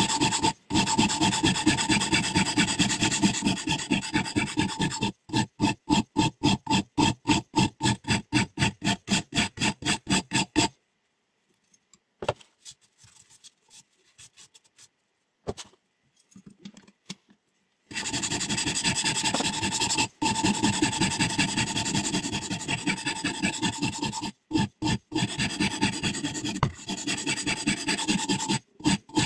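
A sharpening stone rubbed rapidly back and forth along a scissor blade on a guided sharpening system: a steady rasping at several strokes a second. It stops for about seven seconds partway through, leaving only a few faint clicks, then starts again.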